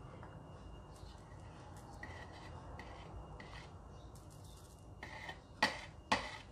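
Metal spoon stirring honey into orange juice in a bowl, rubbing and scraping softly against the bowl, with two short sharp clicks near the end.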